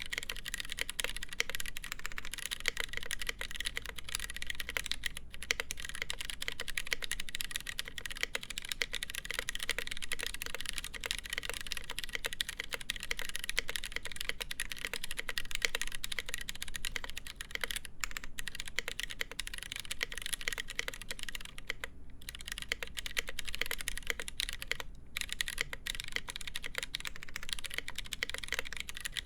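Continuous fast typing on a mechanical keyboard with lubed Gateron Brown tactile switches, a full polycarbonate plate and GMK keycaps: a dense run of keystroke clacks, broken by a few brief pauses.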